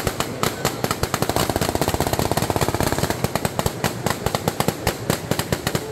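Gunfire at a shooting range: rapid sharp shots, several a second, overlapping with no break.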